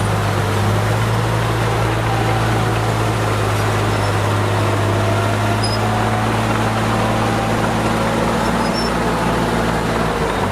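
Diesel engine of a heavy earthmoving machine running at a steady speed: an even low drone whose pitch does not change.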